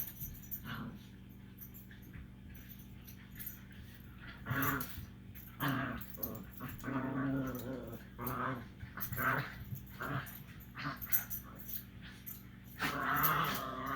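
A dog growling and whining in play, in a series of short vocal bouts; the longest and loudest bout comes near the end.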